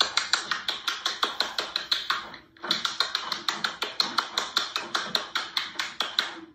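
Rapid crunching and clicking of food being eaten in a mukbang clip, about six sharp clicks a second, with a short break about two and a half seconds in.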